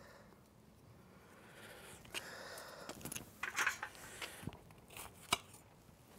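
Quiet food-preparation handling sounds: soft rustling with a few light taps and clicks, the sharpest about five seconds in.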